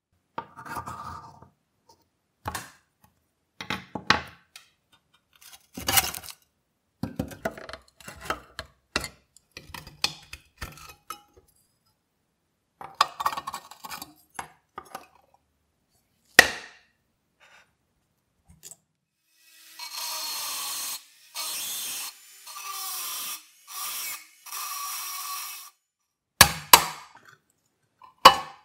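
Rusty pressed-steel toy parts being handled and dismantled: scattered metal clinks, knocks and scrapes. About two-thirds of the way through come several steady rasping passes of about a second each. Near the end there are sharp hammer strikes on a punch driving out an axle.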